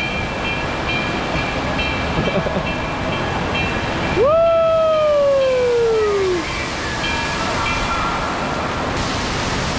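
Indoor water park din: steady rushing and splashing water with a background crowd. A little after four seconds in, a long call falls in pitch over about two seconds.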